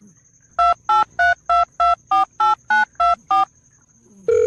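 Ten telephone keypad (touch-tone) beeps, about three a second, dialing a number, with the pitch changing from key to key. A longer, lower tone begins near the end.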